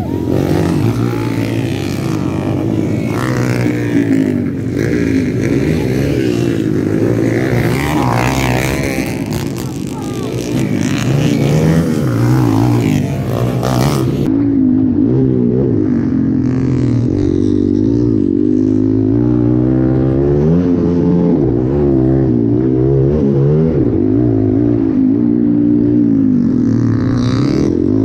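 Motocross dirt bike engine revving hard, its pitch repeatedly rising and falling with the throttle. About halfway through the sound turns duller, losing its hiss.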